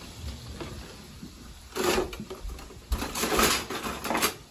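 Kitchen handling noise: two bursts of scraping and rattling, about two seconds in and again from about three seconds, with a few sharp knocks. This fits utensils working shrimp out of a frying pan onto a plate.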